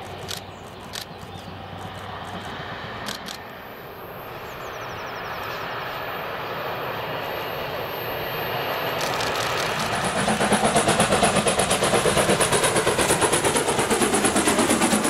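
A train running by, its rumble slowly building, then from about ten seconds in the quick, even exhaust beats of a steam locomotive working, about four a second.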